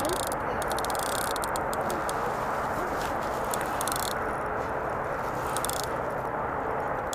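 Daiwa Regal Bite Run spinning reel being cranked against a hooked carp, with several short bursts of rapid clicking from the reel over a steady rushing hiss.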